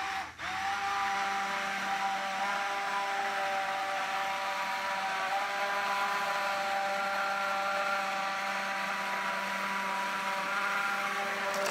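Electric immersion blender running steadily, pureeing soup in a bowl: a steady motor whine that starts about half a second in.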